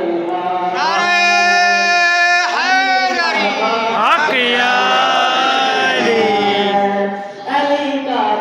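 A boy singing a devotional chant into a microphone, with long held notes joined by sliding pitch changes and a short breath pause near the end.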